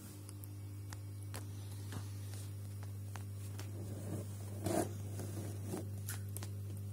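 Close handling noise: light rubbing and scraping with scattered small clicks, one louder rustle about two-thirds of the way through, over a steady low hum.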